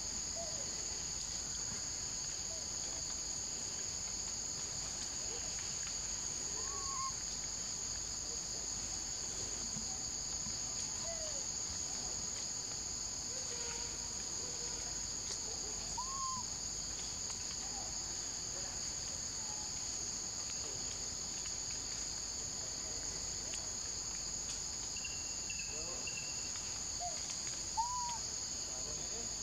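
Insects droning steadily as a continuous high buzz in two pitches, with a few faint short calls now and then.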